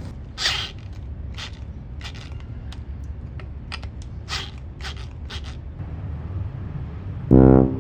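Wooden parts creaking and scraping in a string of short, irregular strokes during work on a homemade wooden flower stand. Near the end, loud music comes in.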